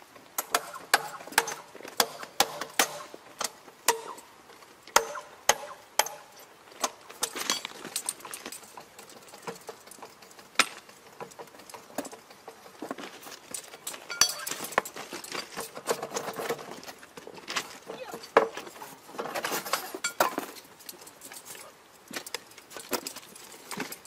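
Metal tools knocking and clinking on metal in repair work on a rail joint: sharp ringing strikes about two a second at first, then a busier, irregular clatter with louder stretches in the second half.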